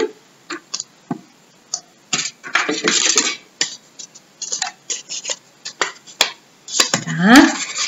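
Folded coloured paper circles being picked up, turned in the hands and pressed down on a tabletop: scattered light taps and crisp paper rustles, briefly busier about three seconds in. A short vocal sound near the end.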